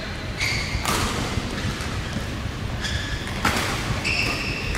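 Badminton rally: four sharp racket strikes on the shuttlecock, most followed by brief high squeaks of court shoes on the court mat, over a steady low hum in the hall.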